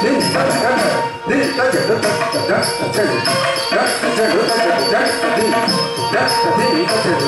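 Live Carnatic music accompanying a classical dance: a singer's melodic line over instruments, kept in time by a steady metallic jingling beat of about two to three strokes a second. The music drops out briefly a little over a second in.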